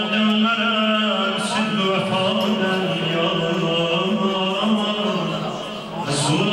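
A man chanting a mersiye (Shia mourning elegy) in long held notes that waver slightly, with a brief break about six seconds in.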